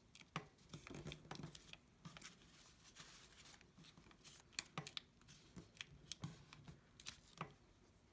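Faint rustling and crinkling of a sheet of paper being folded and creased by hand, with scattered light clicks and taps that die away near the end.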